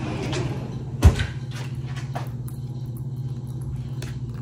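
Kitchen handling sounds over a steady low hum: one sharp knock about a second in, then a few faint taps and scrapes.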